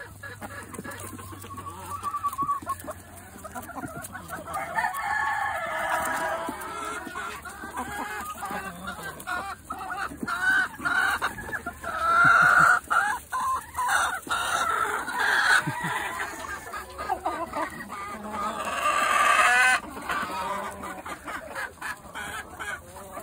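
A flock of chickens clucking and calling around food, with roosters crowing among them.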